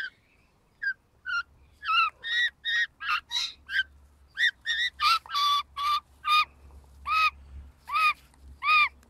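Young Australian magpie giving a run of short repeated calls, each a brief arching note, about two a second, growing louder from about halfway through.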